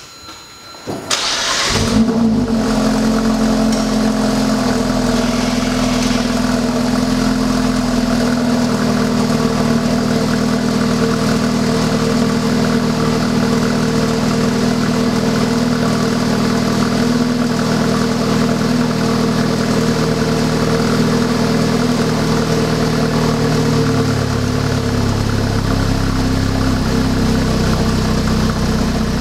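Renault Mégane IV RS's 1.8-litre turbo four-cylinder cold-starting on its stock exhaust: a brief crank, the engine catches with a rev flare about two seconds in, then settles into a steady fast idle. The idle steps down slightly in pitch a few seconds before the end.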